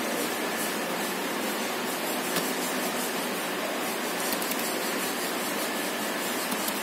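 Steady, even hiss of background room noise with no speech, and a few faint clicks.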